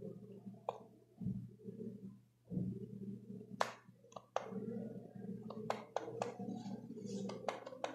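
Small clicks and taps of a plastic power bank's casing being handled and turned over in the hands, coming more often in the second half, over a low steady hum.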